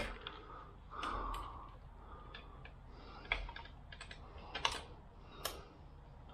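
Scattered light clicks and taps of metal tools and parts being handled on a motorcycle's front end as a fork leg is loosened in its clamps: a soft rustle about a second in, then a few sharper, separate clicks.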